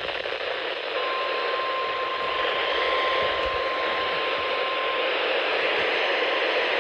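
Radio static: a steady hiss from a weather-radio broadcast whose speech has dropped out, with a faint steady whistle from about a second in until near the end.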